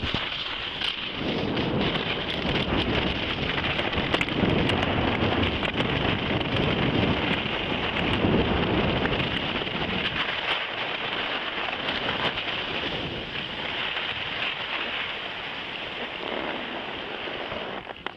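Skis sliding and scraping over packed snow on a downhill run, a steady hiss, with wind buffeting the microphone in swells.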